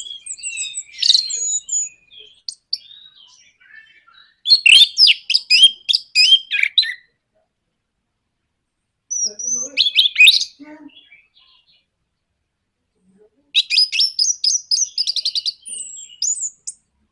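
Orange-headed thrush singing in four loud bursts of varied whistles and chattering notes, with silent gaps between them. The last phrase runs into a rapid rattling trill.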